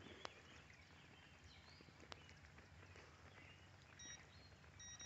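Near silence: faint outdoor room tone with a few scattered faint ticks and two short, faint high chirps near the end.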